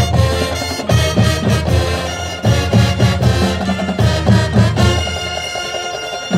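Marching band playing: brass and woodwinds holding full chords over drum and front-ensemble percussion, settling to a softer held chord near the end.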